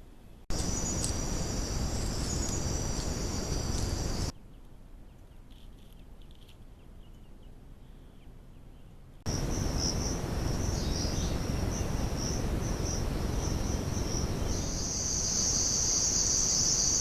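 Insects, crickets or similar, chirping steadily in a high band over a steady hiss, heard in separate clips joined by abrupt cuts; the chirping is quiet in a middle stretch and grows louder near the end.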